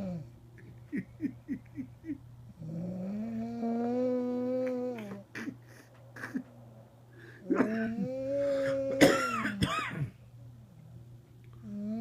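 A woman snoring in long, pitched, drawn-out snores, like a factory's lunchtime horn. There are two snores of about two and a half seconds each, and a run of five short catches of breath about a second in.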